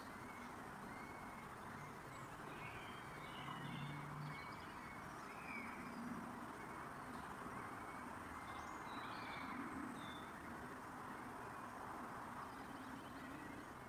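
A steady background hiss with faint, short, high-pitched bird calls scattered through it.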